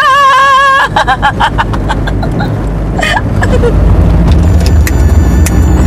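A held sung note breaks off under a second in into a short burst of laughter, then the noise of a car driving with the window open (engine, road and wind) grows louder, with scattered sharp clicks near the end.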